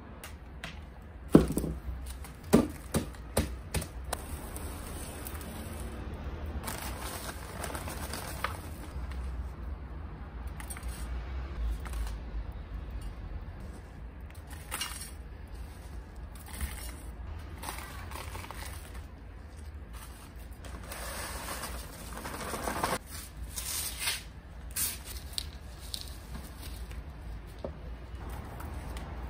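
Gloved hands scooping, scraping and pressing loose potting soil into plastic plant pots, with rustling of soil and newspaper. A quick run of sharp knocks about a second in, as of hard plastic pots being handled.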